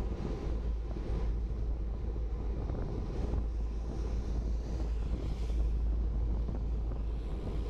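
Wind blowing across the microphone of a camera on a moving bicycle, a steady low rumble, with the hiss of cars on the wet road alongside.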